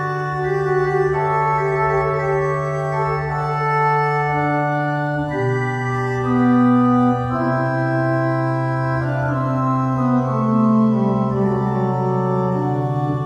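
Monarke digital church organ playing a slow, quiet piece in held chords over a sustained bass note, the harmony changing every second or two.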